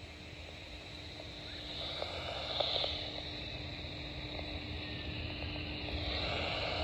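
Hiss and static from a weather radio receiver with no broadcast audible, a faint steady hum under it and a few light crackles about two and a half seconds in.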